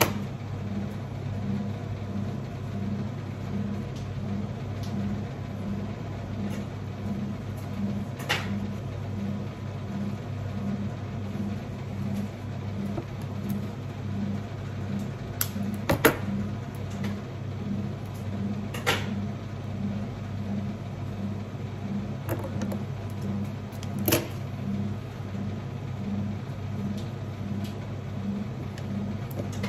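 Steady low machine hum with a soft pulse about twice a second. A handful of sharp snips of scissors cutting flower stems break through it.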